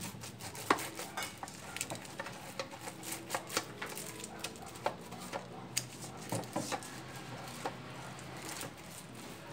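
Pastry brush dabbing and scraping margarine over parchment paper in an aluminium baking pan: irregular light taps and scrapes, several a second.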